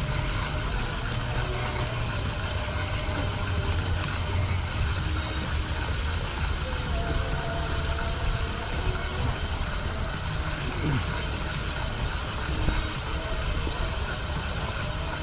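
Steady outdoor noise: wind rumbling on the microphone over the wash of calm sea against shore rocks, with faint voices in the background.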